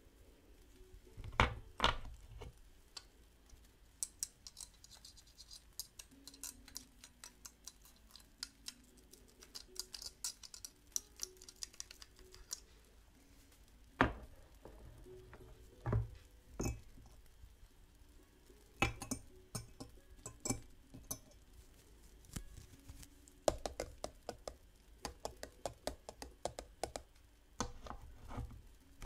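Cups and utensils handled while making tea: scattered knocks and light clinks, the loudest about a second and a half in and about 14 s in, with runs of quick small clicks in between, over faint steady background tones.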